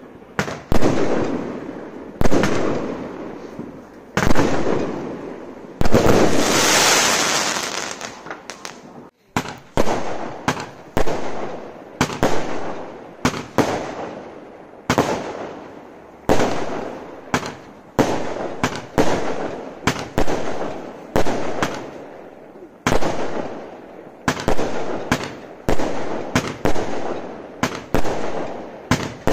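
Consumer firework barrage cakes firing: a long string of sharp bangs, each fading away, about one a second at first and coming faster in the second half. About six seconds in there is a couple of seconds of hissing crackle.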